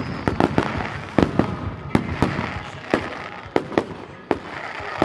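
A fireworks display: aerial shells bursting with sharp bangs at irregular intervals, more than a dozen in five seconds, with a hiss of sparks between them.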